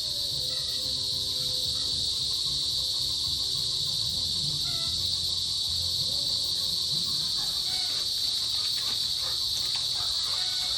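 Chorus of small cicadas buzzing, a steady, unbroken high-pitched drone: males calling to attract females.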